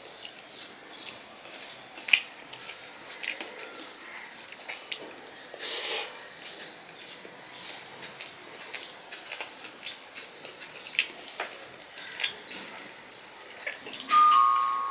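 Close-up mouth sounds of a person eating rice and mashed vegetable by hand: irregular wet chewing clicks and lip smacks, with fingers squishing rice on a stainless steel plate. Near the end a steel dish clinks and rings, the loudest sound.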